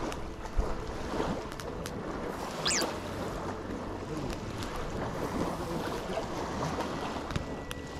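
Outdoor ambience: steady wind noise on the microphone, with faint distant voices and a brief high chirp about three seconds in.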